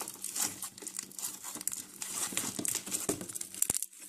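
Homemade slime being stretched and worked by hand, giving a dense run of crackling pops as trapped air bursts. There is one sharper snap near the end.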